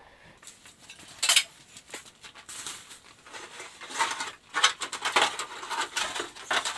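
Loose car body parts being handled and shifted, with an irregular clatter of knocks and scrapes that is busiest in the second half.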